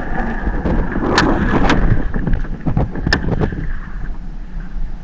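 Fishing boat's engine running steadily, with several sharp knocks and clicks over it in the first few seconds.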